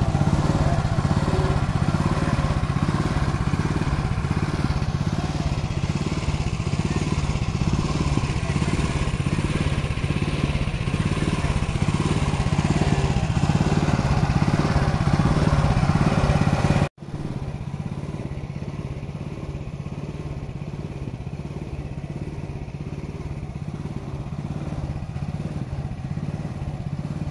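The small engine of a Mahindra MP 461 walk-behind rice transplanter running steadily in a wet paddy, with a regular pulsing beat from the machine under the hum. The sound drops out for an instant about 17 seconds in and continues quieter.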